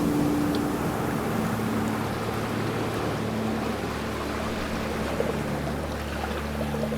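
Sea water washing and surging in a continuous rush, with a steady low engine-like hum underneath whose pitch shifts a little about halfway through.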